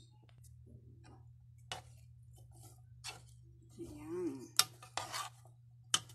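A metal spoon clinks and scrapes against a metal mixing basin as sweet potato sticks are stirred into wet batter, in separate strokes about a second apart. A steady low hum runs underneath.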